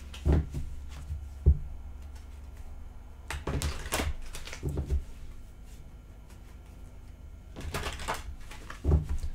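A tarot deck being shuffled by hand: a few short bursts of cards riffling and flapping together, with a couple of sharp taps in the first second or two.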